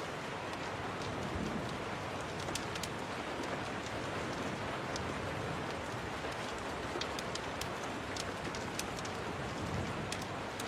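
Steady rain falling against a window, mixed with the scattered sharp crackles of a wood fire.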